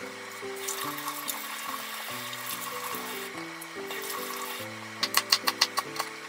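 Water running from a kitchen tap for about four and a half seconds, then shut off. A kitchen knife then chops red bell pepper on a wooden cutting board: about eight quick strokes, some six a second. Light background music plays throughout.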